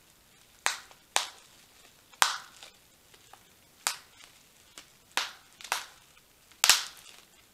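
Bubble wrap being squeezed by hand and popped: about seven sharp single pops at uneven intervals, the loudest near the end.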